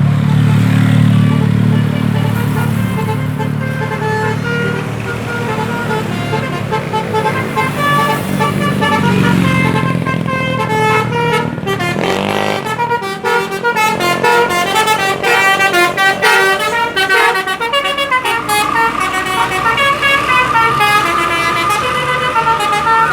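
A bus's Basuri 'telolet' multi-tone horn plays a quick tune of short stepped notes over the low sound of the bus engine. The engine fades about halfway through, the horn notes grow denser, and the tune ends on one long held note.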